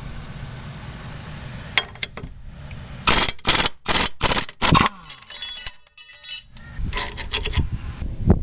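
Socket wrench with an 18 mm deep socket working a nut on a car's front suspension: after a quiet start comes a run of about five short, loud metallic strokes, then a quicker rattle, and a few more strokes near the end.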